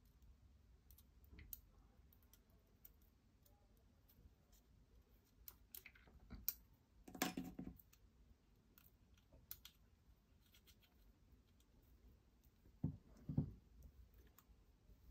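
Near silence with faint, sparse clicks of small screws and metal parts handled on a lightsaber hilt, a brief rustle about seven seconds in and two soft knocks near the end.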